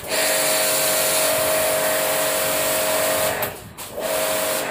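Ballorex KS-7 electric pressure washer running with the spray gun open: a steady motor whine under the loud hiss of the high-pressure water jet. It cuts out briefly about three and a half seconds in, starts again, and stops at the end.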